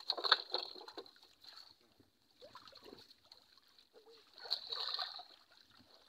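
Pond water splashing and sloshing as a net is hauled and fish thrash in shallow water. There is a loud splash right at the start and another burst of splashing about four and a half seconds in.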